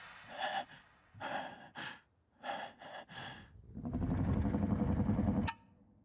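A man gasping and panting in short, frightened breaths, about five of them. Then a low rumble swells for about a second and a half and cuts off with a sharp click.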